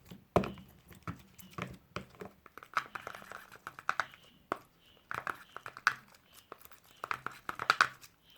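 A spoon stirring PVA glue in a bowl: irregular clicks and scrapes of the spoon against the bowl.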